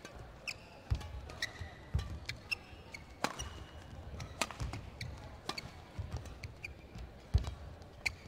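Badminton rally: sharp cracks of rackets hitting the shuttlecock roughly once a second, one loud hit near the end. Shoes squeak briefly on the court floor and feet thud between the hits.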